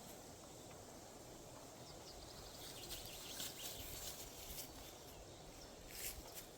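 Forest ambience: a low steady wind rumble, with small birds chirping and singing in short, quick phrases from about two and a half seconds in.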